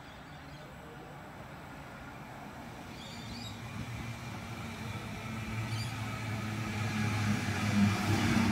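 Sydney Trains Millennium (M-set) electric train approaching and pulling into the platform, its motor hum and rail noise growing steadily louder as it comes in. A few faint bird chirps sound in the middle.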